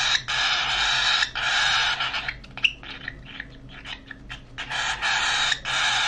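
Baby cockatiel chick making harsh, raspy food-begging calls while being hand-fed, in long repeated stretches. The calls pause for about two seconds near the middle and then start again.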